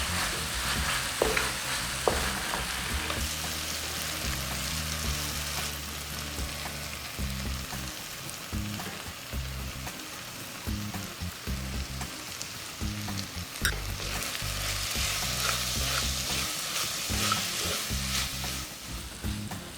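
Food sizzling as it fries in hot oil in a pan, with a few sharp clicks, over background music.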